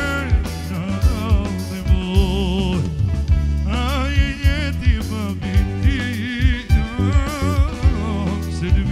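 A man singing live into a handheld microphone, the melody wavering with heavy vibrato and ornaments in long phrases with a short breath about three seconds in. A live band backs him with keyboard and a steady drum beat of about two hits a second.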